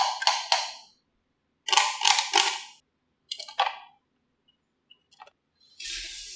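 Marbles clacking along a marble run track in three short bursts of rapid clicks with quiet gaps between, then a few faint ticks and a rattling clatter near the end.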